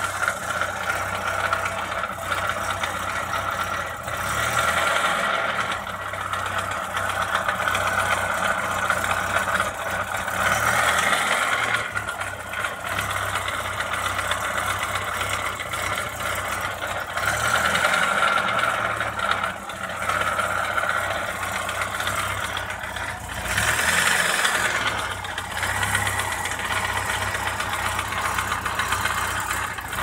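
Opel Astra F's 1.4 C14SE petrol engine idling with a loud rushing noise, rattling and knocks. The noise comes from a damaged coolant (water) pump, which was later replaced.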